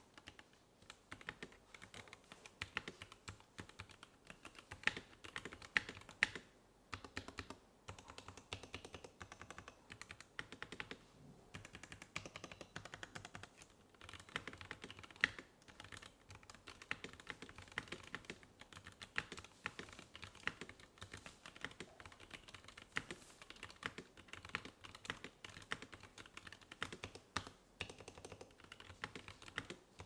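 Steady, fast typing on a compact mechanical keyboard in a clear case fitted with Kailh Jellyfish Y switches: a dense run of keystroke clacks broken by a few brief pauses.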